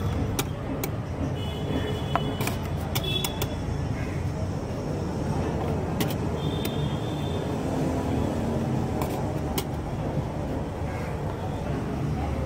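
Steady rumble of street traffic, with a few sharp clicks and brief high tones scattered through it.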